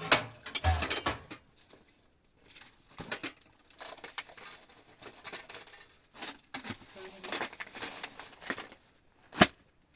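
Irregular clinks, knocks and rustling of objects being handled, with one sharp knock near the end.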